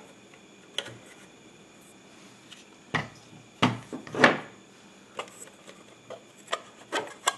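Scattered clicks and knocks of the lens barrel being worked by hand out of an Elmo 16-CL 16mm projector's lens mount, with a short scrape as it slides; the loudest knock and scrape come about four seconds in.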